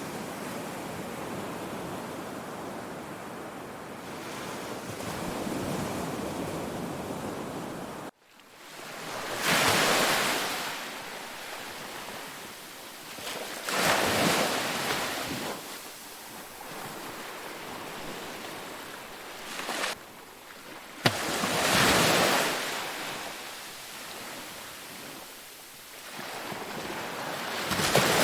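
Sea waves. There is a steady wash of surf at first, then a sudden brief gap about eight seconds in. After that, separate waves swell and break every few seconds, each one rising and then falling away.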